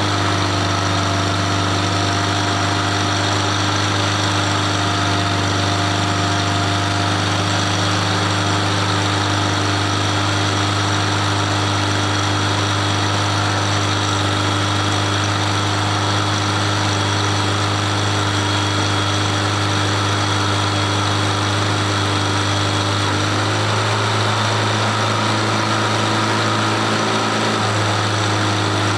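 Jet turbines running steadily at idle: a loud deep hum under a constant high whine, with a slight change in the low tones near the end.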